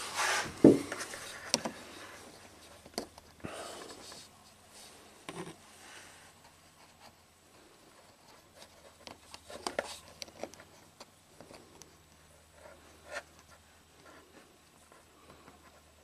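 Quiet handling noises from hands and tools working a car's rear body seam while spreading flowable silicone sealer: scattered light clicks, taps and rubbing, with a couple of louder knocks about midway. A faint steady low hum runs underneath.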